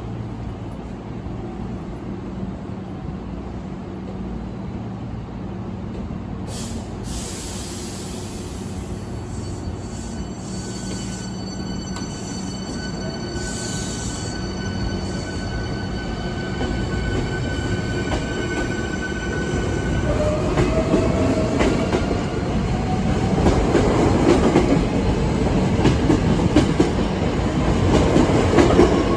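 Hankyu 8300 series electric train pulling away from a station platform. There is a short hiss about seven seconds in, then the motor whine rises in pitch and the running noise grows louder as the train picks up speed.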